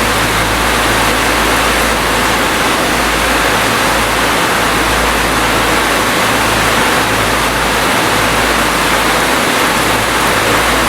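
Steady rain, a dense even hiss with a low rumble underneath.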